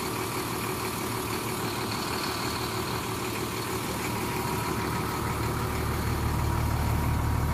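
School bus engine idling with a steady low rumble, which grows louder about five and a half seconds in.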